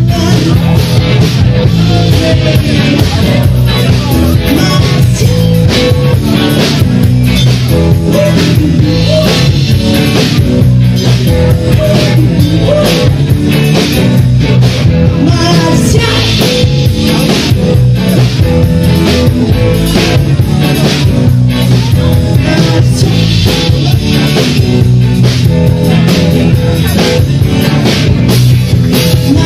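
Live rock band playing loudly: guitar and drum kit with a steady beat, and a singing voice over them.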